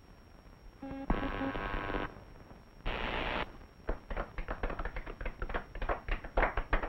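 A short held musical chord, then a brief crash, then scattered hand-clapping from a cartoon crowd, a rapid irregular patter of separate claps.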